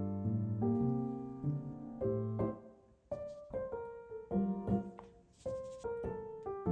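Background piano music: a gentle melody of single struck notes and chords.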